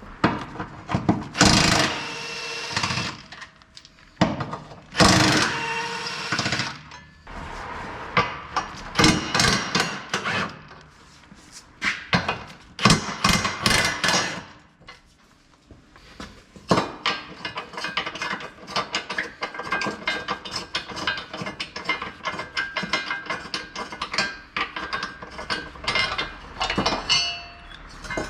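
Hand-tool work on a car's front suspension member: several short bouts of metal clanking and knocking, then a long stretch of rapid clicking and tapping from a little past halfway.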